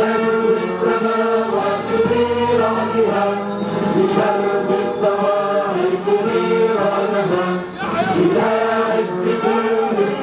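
Music with a choir singing: several voices held together in long sung lines.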